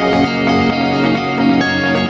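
Background music with plucked guitar-like notes over sustained tones.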